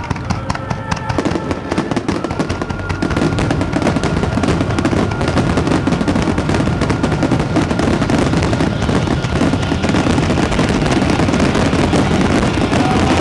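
Fireworks finale barrage: a dense run of rapid bursts and crackles that merges into a continuous rumble, growing louder a few seconds in.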